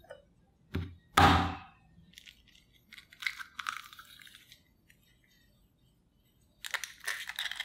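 A raw egg is tapped, then cracked with one loud sharp crack about a second in. Its shell crackles as it is pulled apart and the egg is opened into a plastic egg separator. A quick run of small clicks follows near the end.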